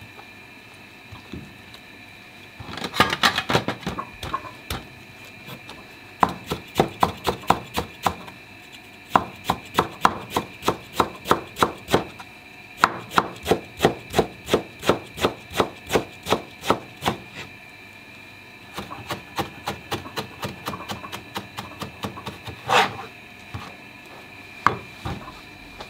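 Kitchen knife shredding rolled daikon radish into fine strands for sashimi garnish (tsuma): quick knife strokes knocking on a wooden cutting board, about three a second, in runs broken by short pauses. One louder knock comes near the end.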